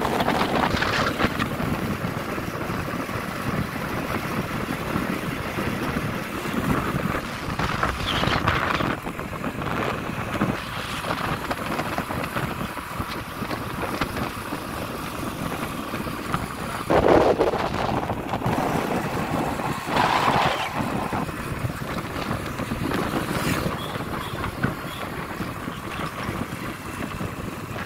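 Wind noise rushing over the microphone of a moving motorcycle, with the engine running underneath and a few louder gusts.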